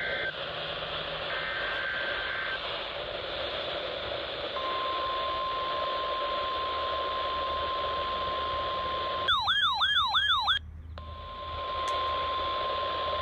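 NOAA Weather Radio test broadcast heard through a receiver over steady static hiss and hum. It opens with the last two bursts of the SAME digital data header, a pair of shrill data tones. About four and a half seconds in, a long steady warning alarm tone begins. Near the end a loud warbling alert sounds for just over a second and cuts out the hiss, then the steady tone resumes.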